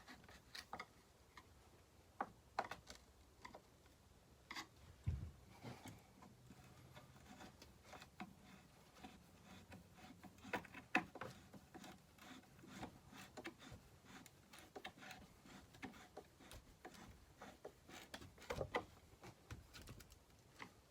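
Faint, scattered clicks and light knocks of hand tools and small metal chainsaw parts being handled during reassembly, with a duller thump about five seconds in.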